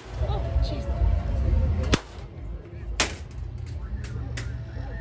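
Two loud, sharp cracks about a second apart, then a fainter one, over a steady low rumble.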